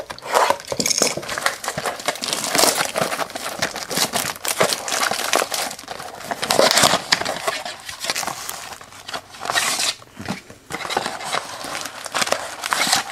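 Clear plastic shrink wrap crinkling and crackling as it is torn and pulled off a cardboard retail box, with a brief pause about ten seconds in.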